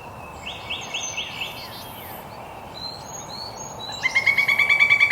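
Several birds calling over a steady background hiss. About four seconds in, a woodpecker starts a loud, fast rattling call of rapidly repeated notes.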